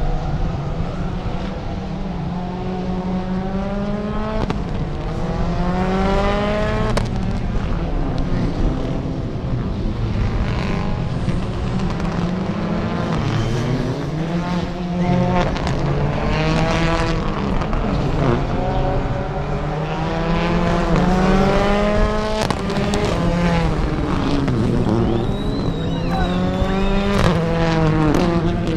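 Rallycross car engines revving hard through the gears, each pitch climbing then dropping sharply at the shift, several times over, with sharp pops between shifts and a steady low drone underneath.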